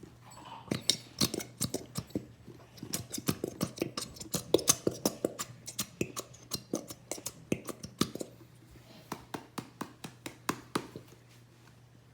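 Many quick, irregular clicks and knocks from emptying a bottle of glue into a bowl, the bottle squeezed and tapped to get all the glue out. A faint steady hum runs underneath.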